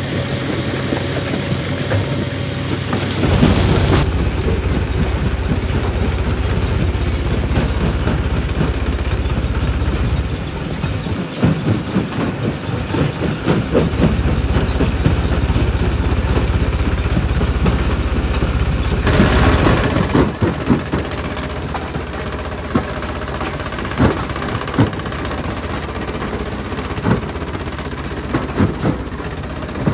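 Stone jaw crusher running with a steady low drone, rock knocking and cracking between its jaws. Two louder rushes of crushing noise come a few seconds in and again about two-thirds of the way through.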